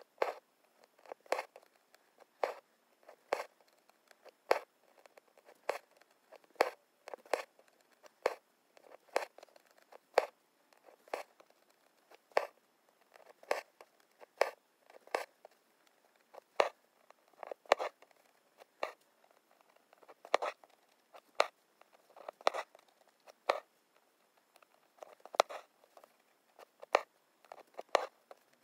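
Embroidery needle and thread being drawn through taut linen stretched in an embroidery hoop, each pull a short rasping zip, repeating roughly once or twice a second as stitches are worked.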